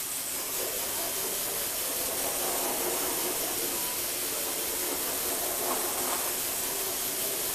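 Lego Technic model's small electric motors and plastic gears whirring as it drives and turns, with a steady hiss and a faint wavering whine.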